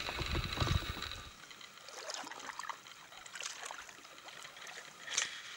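Kayak paddles dipping into calm water, with faint drips and small splashes. A low rumble stops about a second in.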